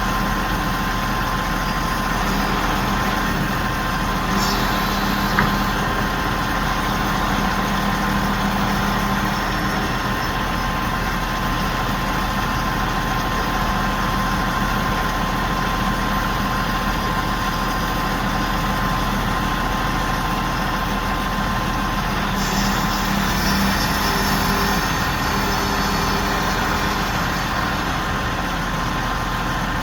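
Heavy engine of a large crane running steadily under a lift: a constant drone with a thin steady tone over it.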